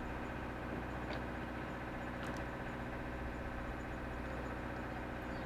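Tugboat's diesel engine running steadily at a constant low hum, with a couple of faint clicks over it.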